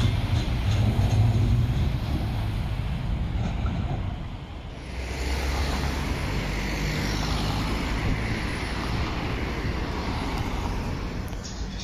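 Trams and cars passing on a city street, a steady low rumble with traffic noise. The sound dips briefly about four and a half seconds in, then goes on with a Pesa Krakowiak low-floor tram moving past alongside cars.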